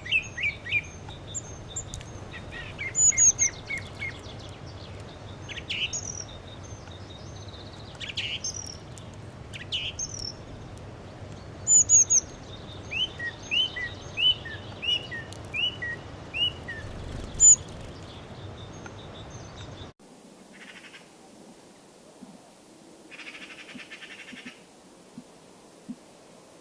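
Songbirds chirping and calling: short high notes and quick downward-sweeping chirps, at one point a run of them about two a second, over a steady low rushing background. About two-thirds of the way in the background cuts abruptly quieter, leaving a few short buzzy trills.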